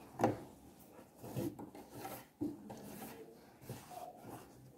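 Cotton fabric rustling and rubbing as hands slide and smooth it into place under a sewing machine's presser foot, with a couple of soft knocks.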